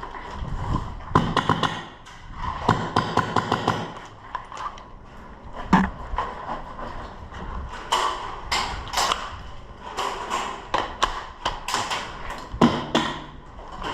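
Airsoft guns firing in several short bursts of rapid shots, with single sharp cracks between them.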